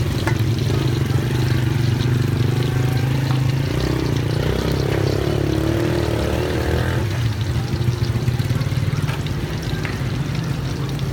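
Battered banana pieces frying in a pan of hot oil, with light crackling over a steady low rumble. A wavering mid-pitched drone swells from about four to seven seconds in.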